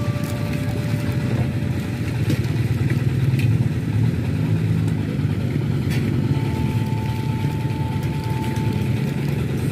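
Motorcycle engines running close by, a steady low rumble. A faint held tone sounds over it for a few seconds in the second half.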